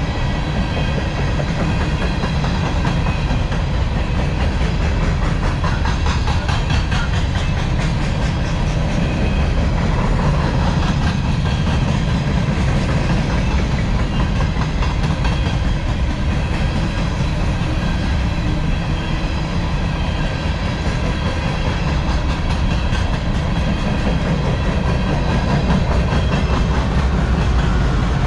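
Empty steel coal hopper cars of a long unit freight train rolling steadily past, their wheels clicking in an even stream over the rail joints above a low steady rumble.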